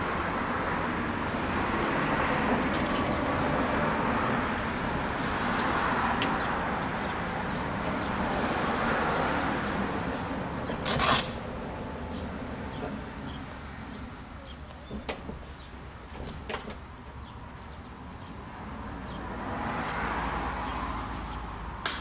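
Toyota Sienna wheelchair van's powered sliding door and ramp mechanism running after a press of the remote, with one loud clunk about eleven seconds in, then a few small clicks and another stretch of motor noise near the end.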